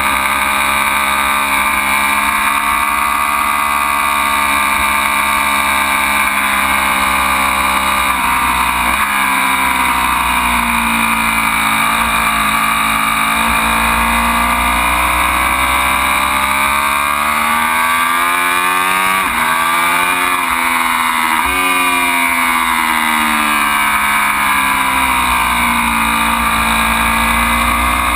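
Ducati Panigale V4 motorcycle's V4 engine running hard, its revs climbing and falling as it accelerates and slows. There are quick drops in pitch from gear changes about eight seconds in and again around twenty seconds in.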